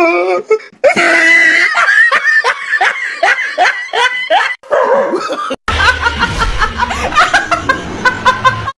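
A woman laughing hard in rapid, high-pitched bursts. The laughter breaks off for an instant about five and a half seconds in and goes on over a low steady hum.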